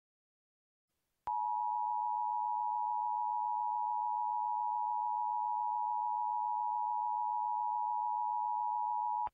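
Emergency Alert System two-tone attention signal: a steady dual-tone beep that starts about a second in with a click, holds for about eight seconds and cuts off suddenly.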